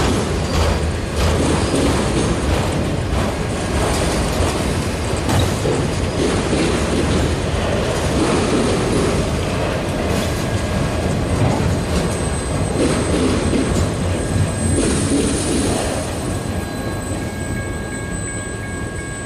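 Auto rack freight cars rolling past, steel wheels on rail making a steady rumble with repeated clicks and a thin wheel squeal in the last few seconds.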